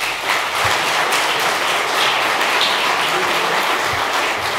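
Audience applauding: many people clapping together in a steady, dense round of applause.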